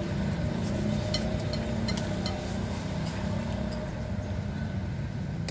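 Steady rumble of road traffic, with a few light clinks of a metal spoon and fork against a plate.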